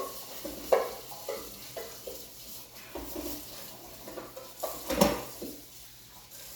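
Bread maker pan being scrubbed by hand with dish soap, clattering and scraping in irregular knocks, the loudest about five seconds in.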